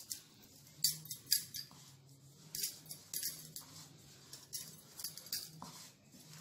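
Wooden rolling pin rolling out floured chapati dough on a wooden board: a series of short, irregular light knocks and scrapes as the pin is pushed and lifted.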